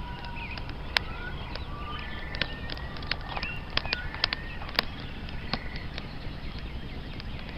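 Small birds chirping, whistling and giving rapid trills, with sharp crackles and pops scattered through, over a steady low rumble.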